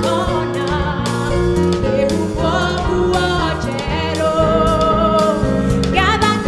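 Live gospel worship song: singers with a drum kit, cymbals and bass guitar.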